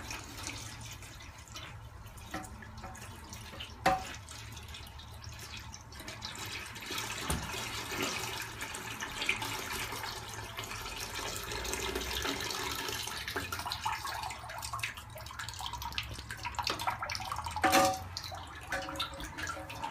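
Water draining out of a toilet tank through the hole left by the removed fill valve, splashing and trickling, heaviest in the middle, with a sharp knock about four seconds in and another near the end.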